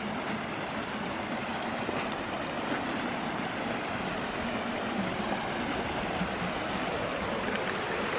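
Creek water rushing steadily, running high and fast after several days of rain.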